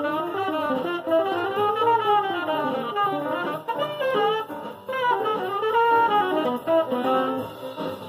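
Solid-body electric guitar playing a fast single-note jazz solo line.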